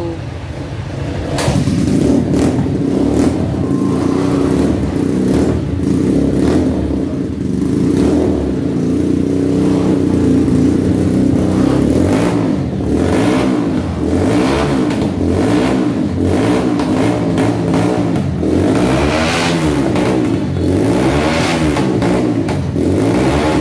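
Rusi KRY 150's single-cylinder four-stroke engine running through an aftermarket Norifumi Rocket 4 exhaust. It runs fairly steadily at first, then is revved again and again from about halfway, its pitch rising and falling with each throttle blip.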